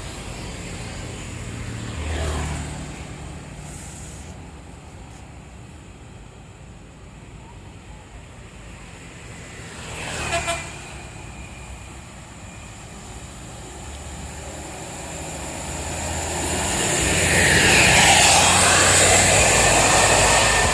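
Motor vehicles passing on the road: one goes by about two seconds in and another about ten seconds in. A much louder heavy vehicle then approaches and passes over the last several seconds.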